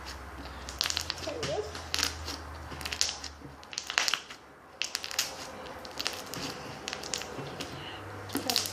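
Irregular crackling clicks and crunches from something being handled close to the microphone.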